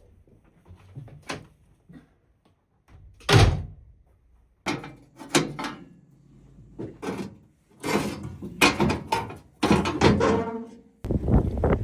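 A series of knocks and thuds, the heaviest about three and a half seconds in, followed by a quick run of clattering knocks. A steady rush of wind starts near the end.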